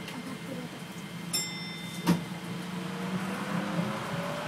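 Running noise inside a New Shuttle rubber-tyred people-mover car: a steady low hum, a short high ringing tone after about a second and a half, then a sharp knock. From about two-thirds of the way in, a motor whine rises steadily in pitch as the car gathers speed.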